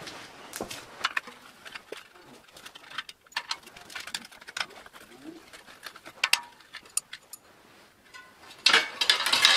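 Scattered clicks and light metallic knocks as an old bicycle's front wheel is handled and lifted out of its fork, with a louder clatter near the end.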